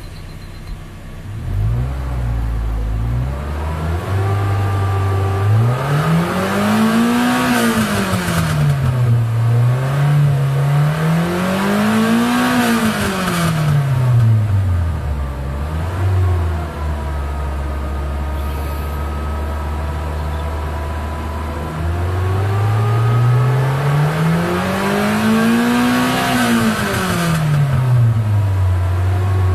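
Nissan SD23 four-cylinder diesel engine revved up from idle and let fall back three times, heard from inside the cab: two rises close together in the first half, a steady idle, then a third rise and fall near the end.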